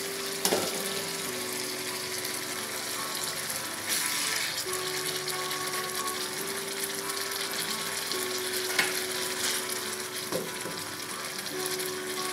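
Dried fish and potatoes sizzling in hot oil in a pan, with a few sharp knocks from stirring. Background music with long held notes plays over it.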